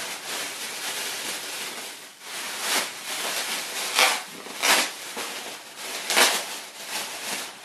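A thin plastic bag crinkling and rustling as it is handled and pulled open, with several louder crackles.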